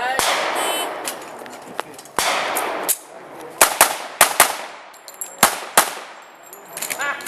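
A string of about nine pistol shots fired at uneven intervals, several as quick pairs, each a sharp crack with a short echo.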